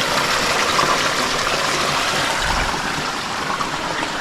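Hot-spring water flowing and trickling steadily, with a brief low rumble about two and a half seconds in.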